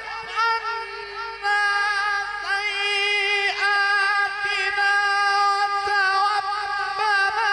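A male qari's voice in melodic Quran recitation (tilawat), drawing out a vowel into long held, ornamented notes with wavering melisma, and no words in between.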